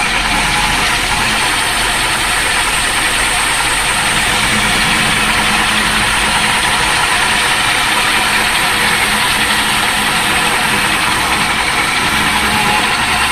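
A machine's motor or engine running steadily and loudly, without let-up.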